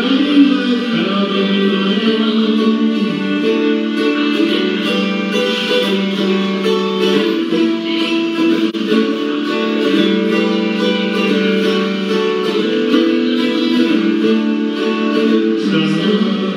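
Acoustic guitar played live, a continuous run of plucked and strummed chords.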